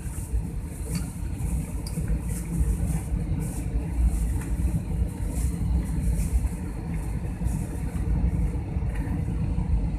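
Steady cabin noise inside a jet airliner flying low on its descent to land: a deep rumble of engines and airflow with a high hiss over it.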